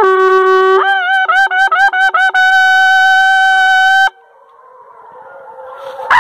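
Hunter's horn blown loudly. One long note drops in pitch, then comes a quick run of rapid pitch jumps, then a held note that cuts off about four seconds in. Faint dog baying follows, and a brief loud falling note comes at the very end.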